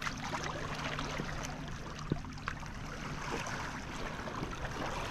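Sea water washing and lapping against the breakwater, an even rushing wash with a steady low hum beneath it and a few faint ticks.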